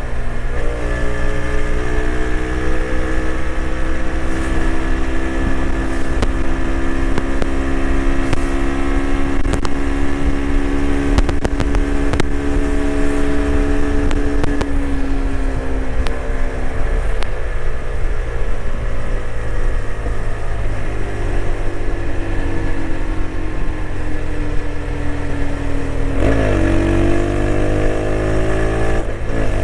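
TVS Apache RTX 300 single-cylinder motorcycle engine running on the highway, its note slowly falling for most of the time as the bike eases off, with wind rush on the microphone. About 26 seconds in the pitch jumps up suddenly and then climbs steadily as the bike pulls hard again.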